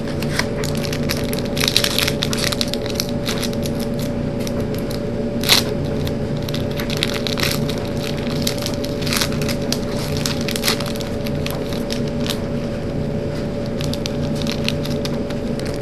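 Trading-card booster pack wrapper crinkling and tearing open, with cards being handled: a run of crackles and snaps, the sharpest about five and a half seconds in, over a steady room hum.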